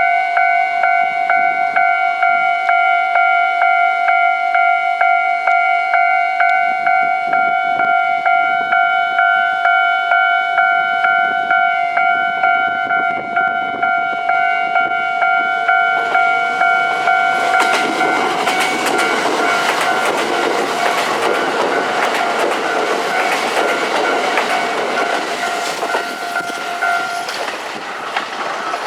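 Japanese level-crossing warning bell ringing in a steady, even beat of about two strikes a second. From about 17 seconds in, Kintetsu limited-express trains run past with a loud rush of wheel and rail noise. The bell stops near the end.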